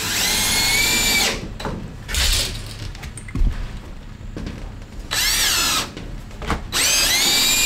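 Cordless DeWalt drill/driver driving screws into wooden framing studs: the motor spins up and whines in four runs, one long and three short, with a knock about halfway through.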